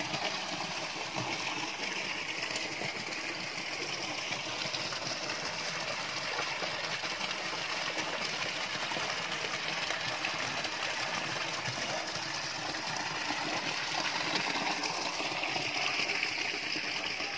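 Water pouring from a spout into a swimming pool that is being filled, a steady splashing rush.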